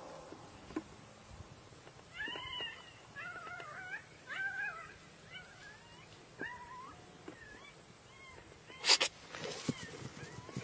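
Coyote yips and whines: a string of short, wavering high-pitched calls starting about two seconds in. A loud sharp noise comes near the end.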